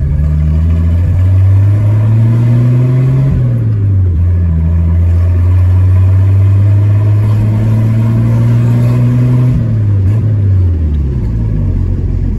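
Six-cylinder alcohol engine of a Chevrolet A20 pickup, heard from inside the cab, pulling away through the gears of its new five-speed gearbox. The engine pitch climbs, drops at a gear change about three seconds in, climbs slowly again, and drops once more near ten seconds in.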